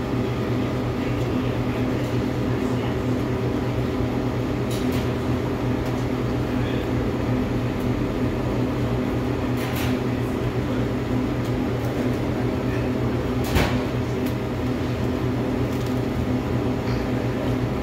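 Steady machine hum, as from a restaurant's ventilation or refrigeration unit, with a few light clicks and one sharper knock about 13 seconds in.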